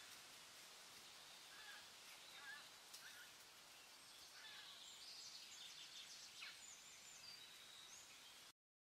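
Faint background ambience: a steady hiss with scattered short, high chirps. It cuts off abruptly to silence shortly before the end.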